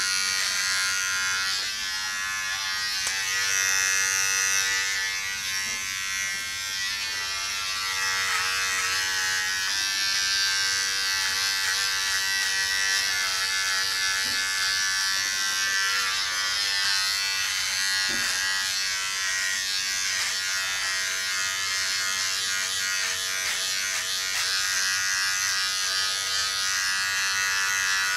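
Braun All-in-One Trimmer 3 (MGK3220) cordless hair trimmer running steadily as it is passed over a closely cropped scalp, cutting the short hair.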